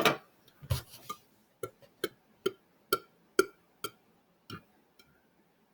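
A man gulping down a drink in quick swallows, a short click from the throat about twice a second.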